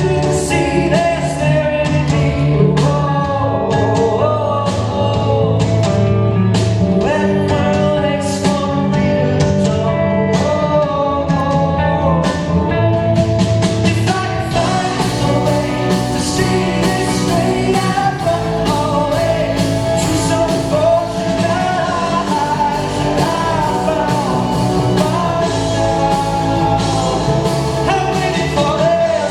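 Rock band playing live, with a sung lead vocal over guitars and a steady drum beat.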